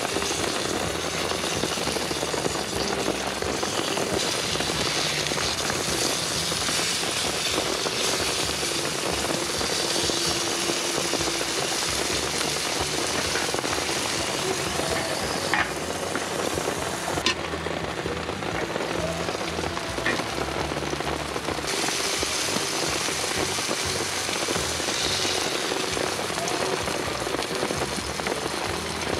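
Burger patties sizzling on a hot steel griddle plate, over a steady wash of rain. Two sharp clicks come near the middle.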